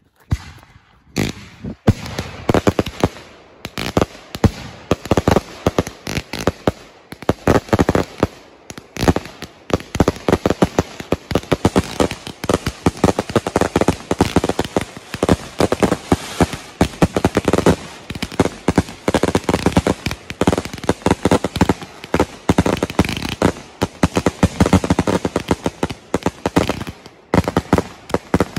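Consumer fireworks grand finale: many cakes and aerial shells firing at once, a dense, nearly unbroken barrage of launch thumps, bangs and crackling breaks, with brief lulls about eight seconds in and near the end.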